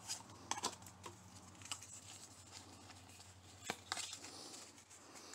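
Pokémon trading cards being shuffled through in the hand: faint slides and flicks of card stock, with a few sharper clicks, the clearest about half a second in and near the end.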